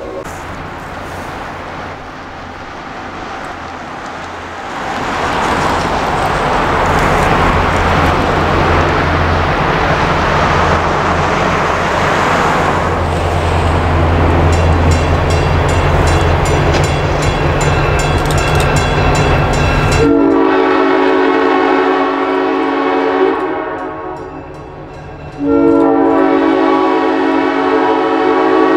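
A diesel locomotive runs past with a steady engine drone and rumbling wheel-and-rail noise, growing louder about five seconds in. Later its multi-tone air horn sounds two long blasts of about three seconds each.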